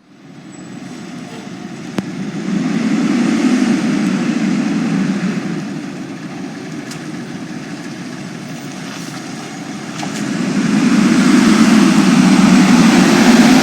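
Heavy fire truck's diesel engine running and moving off, with road noise. It grows loud about three seconds in, eases, then swells again near the end.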